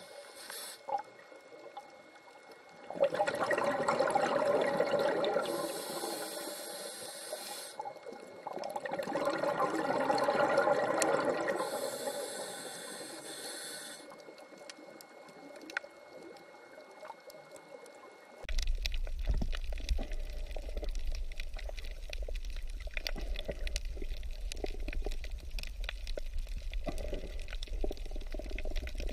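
Underwater camera audio: a scuba diver breathing through a regulator. There are two long bubbling exhales, each followed by a hissing inhale. After a cut, a steady low hum with dense crackling takes over.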